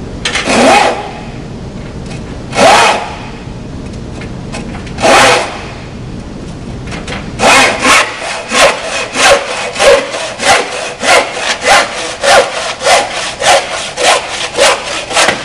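IRWIN Universal Handsaw cutting a wooden board: three separate pull strokes to start the groove, then from about halfway a fast run of full strokes, about two a second, sawing through the board.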